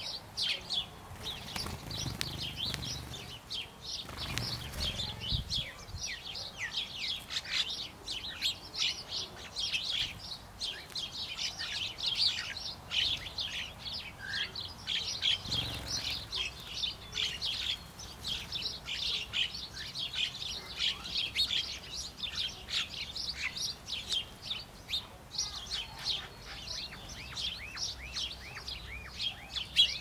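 A flock of sparrows chirping without a break: many quick, high chirps overlapping one another. A couple of brief low thumps fall in the first few seconds and about halfway.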